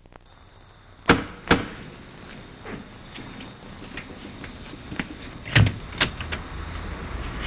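Knocking on a door: two sharp knocks about a second in, then two more a few seconds later, with faint small ticks in between.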